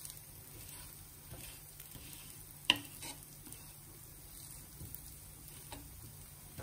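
Dosa frying with a faint sizzle on a hot tawa as a wooden spatula spreads oil over it, scraping across the surface. One sharp click about two and a half seconds in, with a few softer clicks later.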